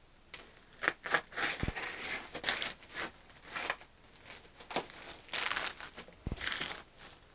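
A plastic mailer bag being cut with scissors and pulled off a cardboard box, crinkling and rustling in irregular bursts, with a couple of low bumps as the box is handled.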